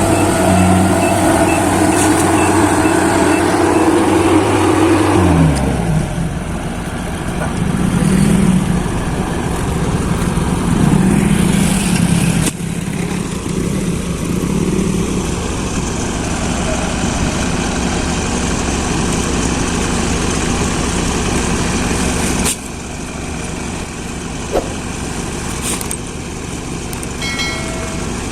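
Combine harvester engine running steadily; about five seconds in its pitch drops as the engine slows, then it runs on at the lower speed.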